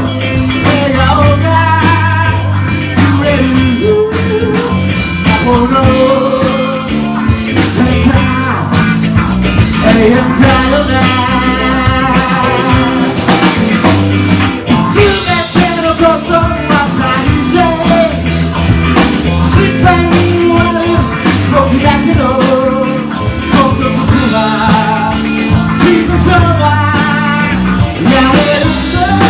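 Rock song: a singer's voice over electric guitar, bass and drums.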